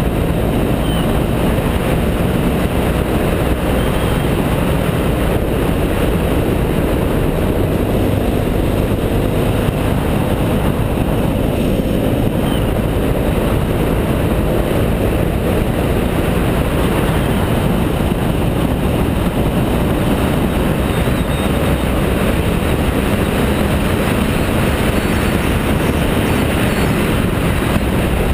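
Riding noise from a BMW F650GS motorcycle at steady road speed: a loud, even rush of wind buffeting the camera microphone, with the engine running underneath.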